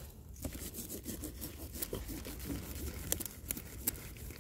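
Cabbage leaves and stalk rustling and scraping as hands work at the base of the plant to cut it, with a few sharp clicks.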